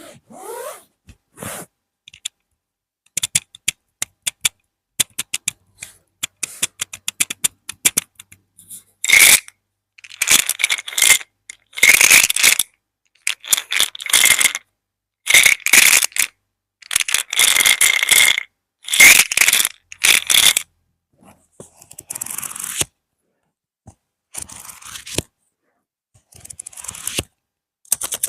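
ASMR tapping and scratching: rapid light taps for the first several seconds, then a series of loud scratching bursts about a second each, growing fainter near the end.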